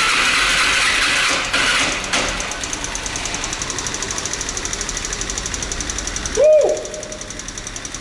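Petrol maxi-scooter being started on a weak battery: about two seconds of starter cranking, then the engine catches and settles into a fast, even idle. A short, loud sound that rises and falls in pitch comes about six and a half seconds in.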